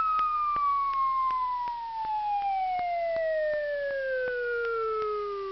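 Cartoon falling sound effect: a whistling tone sliding slowly and steadily down in pitch, with faint, evenly spaced clicks under it.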